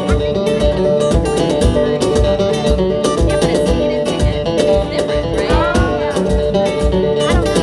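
Band music at a sound check: plucked guitar over a steady beat, an instrumental stretch with no singing.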